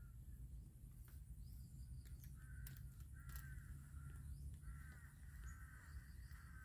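Crows cawing faintly, a string of short harsh caws repeating every second or so.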